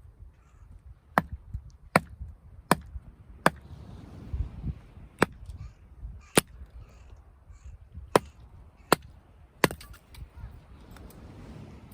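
A series of nine sharp striking knocks, mostly about a second apart with a short pause near the middle, like blows of a tool striking wood.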